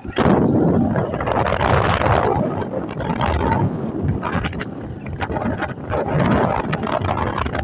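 Wind buffeting the microphone in loud, uneven gusts over a vehicle's running noise; it starts abruptly.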